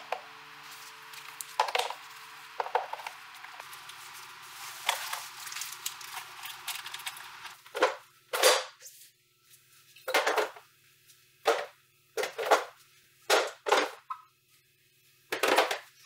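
Clear plastic refrigerator door bins and shelves being lifted out and set down among bottles: a dozen or so separate plastic knocks and rattles, a second or so apart.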